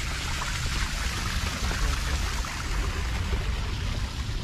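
Small waterfall in a garden pond, water splashing and trickling steadily over rocks, over a steady low rumble.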